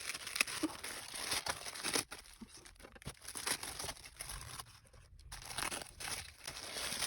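Wrapping paper rustling and crinkling in the hands, with small irregular crackles and tearing sounds as a parcel is unwrapped.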